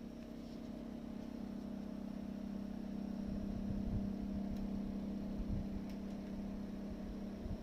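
Panasonic CW-P28CA2 inverter window air conditioner's compressor running with an abnormal steady drone, like a motorcycle running in the room, with a fluttering low rumble that builds from about three seconds in. The owner takes it for abnormal compressor vibration setting up a resonance.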